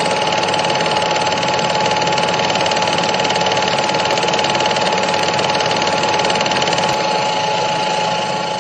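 Steady machine whir with a rapid, even clatter and a constant mid-pitched hum, starting to fade out near the end.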